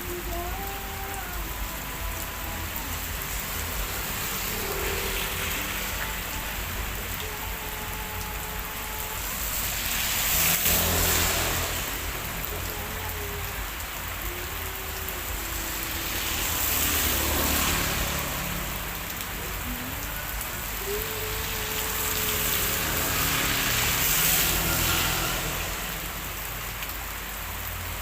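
Heavy rain falling steadily, with three swells of louder rushing about ten, seventeen and twenty-four seconds in.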